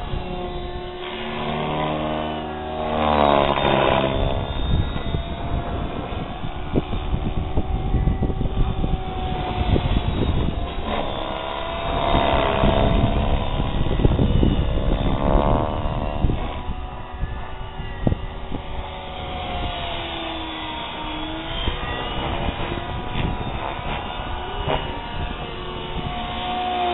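Compass 6HV RC helicopter in flight: the motor and rotor blades whine and whoosh, the pitch sweeping up and down repeatedly as it is thrown through aerobatic manoeuvres.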